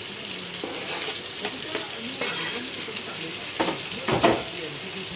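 Sliced vegetables sizzling in butter and oil in an aluminium pot as they are stirred with wooden tongs, with a couple of sharper knocks past the middle.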